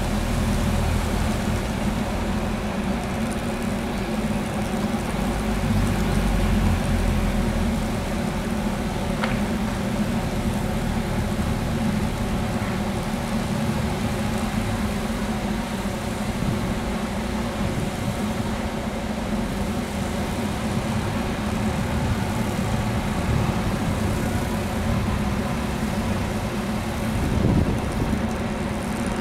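Sapporo tram sasara snow-broom car (Yuki 1) running with its rotating bamboo brooms sweeping snow off the track: a steady mechanical noise with a low hum, and a single brief click about nine seconds in.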